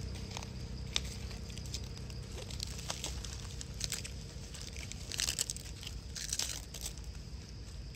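Dry dead leaf crinkling and crackling as a long-tailed macaque handles it, in scattered small clicks with louder bursts of crackle about four, five and six seconds in.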